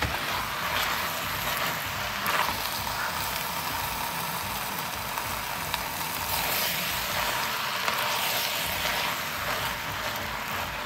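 Beef chunks with peppers, tomatoes and carrots sizzling steadily as they fry in a hot pot, swelling louder a few times.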